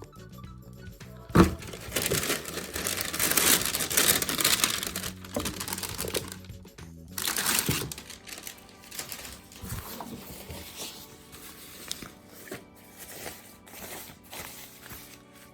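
Paper packing crinkling and rustling loudly as a football-boot box is unpacked, for several seconds, after a sharp knock about a second and a half in; softer handling sounds follow. Music plays underneath.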